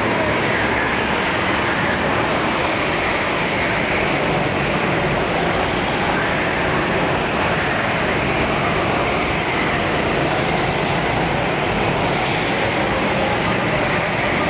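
Several go-kart engines running together around an indoor track, a steady buzz whose pitch wavers up and down as the karts speed up and slow for the corners, echoing in the hall.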